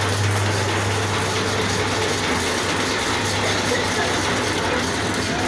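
Motorised agarbatti (incense-stick) making machine running steadily, its motor and gears giving an even mechanical clatter as it extrudes mosquito-repellent sticks. A low hum under it weakens about a second and a half in.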